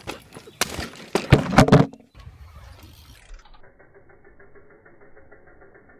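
A rapid clatter of loud knocks and crashes lasting about a second and a half, then a change to a quieter, muffled steady noise.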